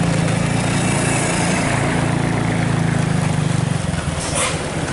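Heavy trucks' diesel engines running nearby in a steady low drone. About four seconds in, the sound changes to a more throbbing, pulsing engine note.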